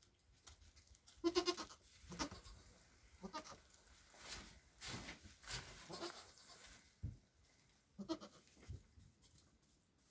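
Nigerian Dwarf goats bleating: a few short bleats, the loudest about a second in, with the rustle of hooves moving in wood-shavings bedding between them.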